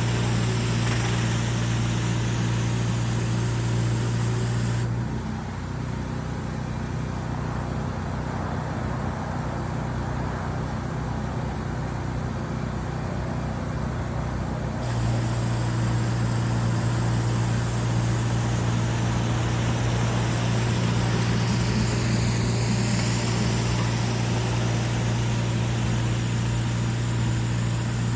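Pressure washer engine running steadily at a constant speed, with the hiss of water spray over it. The sound drops a little and dulls about five seconds in, then returns to full strength about fifteen seconds in.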